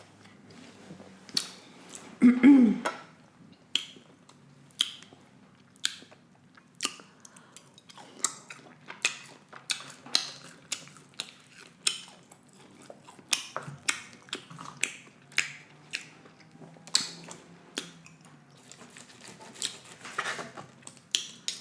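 Close-miked chewing of steak: irregular wet mouth clicks and smacks, about one or two a second, with a short hum of approval a couple of seconds in.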